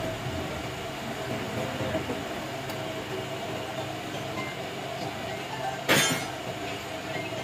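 Steady mechanical rumble with a sharp metallic clank about six seconds in.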